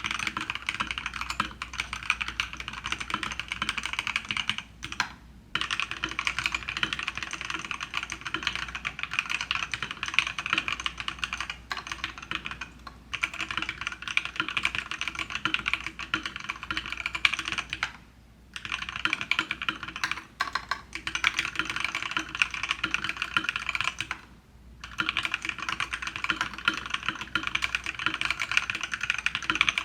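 Continuous typing on a foam-modded GamaKay LK67 keyboard with lubed and filmed C³EQUALZ Tangerine 62g linear switches and PBT keycaps. It is a dense run of keystrokes broken by short pauses about 5, 13, 18 and 24 seconds in.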